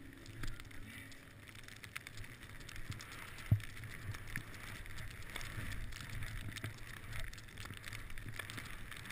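Skis sliding through snow, a steady hiss with a low rumble and many small scrapes and ticks; one sharp knock about three and a half seconds in.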